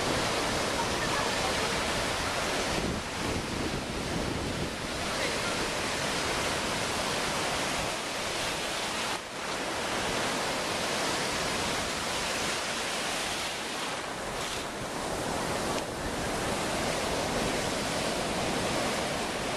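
Ocean surf breaking and washing through the shallows: a steady rushing of white water, with a few brief lulls.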